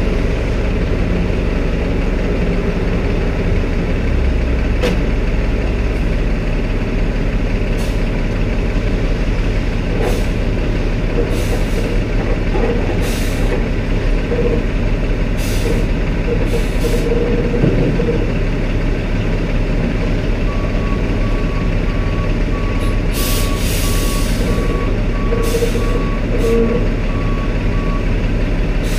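Steady rumble of heavy diesel machinery from a large forklift and a semi truck. From about two-thirds of the way in, a reversing alarm beeps at an even pace, about one and a half beeps a second, for several seconds. Short bursts of air hiss break in near the end.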